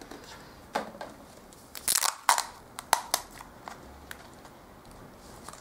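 A Click & Grow soil capsule being drawn out of its small cardboard box and handled: a string of short, sharp clicks and crinkles of plastic and card, loudest about two seconds in.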